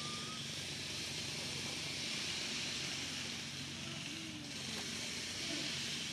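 Steady outdoor background: a constant high hiss over a low, even hum. A short rising whistle sounds right at the start.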